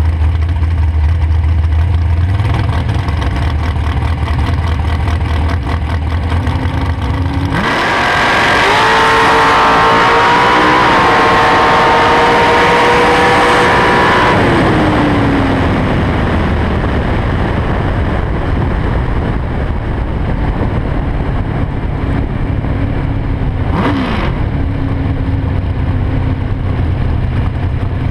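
Bracket dragster's engine heard from the cockpit: it runs low and steady on the starting line, then launches at full throttle about a quarter of the way in and climbs in pitch for about six seconds down the track. It then drops off as the driver lifts, and it runs low with wind noise while the car rolls through the shutdown area.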